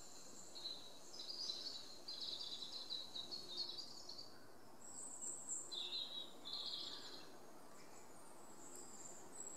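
Wild songbirds singing: several quick high trilling and warbling phrases in the first few seconds, then further short bursts of song around five to seven seconds in, over a faint background hiss.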